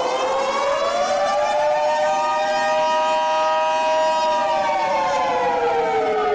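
Civil defence siren wailing: its pitch rises for the first couple of seconds, holds steady, then falls near the end.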